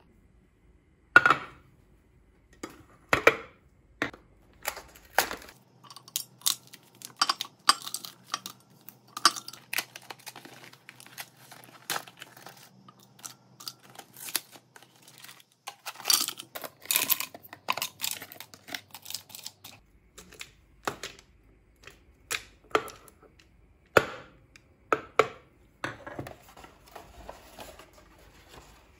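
Aluminium coffee capsules being handled and dropped into a glass jar, with cardboard capsule boxes being torn open: an irregular run of clicks, clinks and crinkles.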